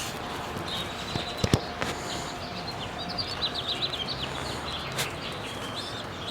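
Sparrows chirping: a quick run of short, high chirps in the middle, over steady background noise, with a few sharp clicks.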